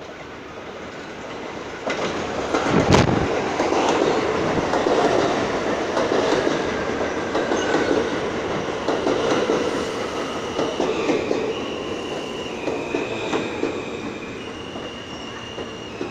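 R160A subway train pulling into an elevated station and slowing to a stop. The wheels clatter over rail joints, with one sharp clack about three seconds in. As it slows, a whine falls in pitch and high tones change in steps.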